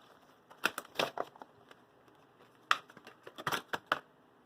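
Stiff plastic blister packaging being cut and pried open with a knife, crackling and snapping in two short bursts of sharp clicks.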